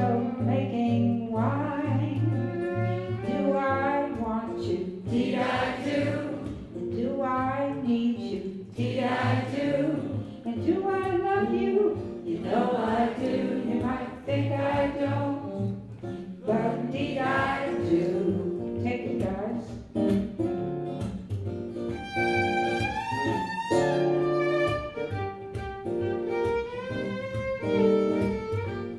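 Live acoustic folk music: a woman singing to acoustic guitar, then about 22 seconds in a violin takes over with an instrumental melody over the guitar.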